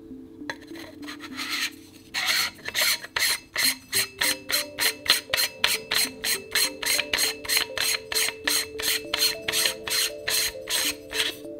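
Metal sunshade twisted on the threaded objective bell of a rifle scope, its threads rasping in quick, even strokes about three a second, over background music with held tones.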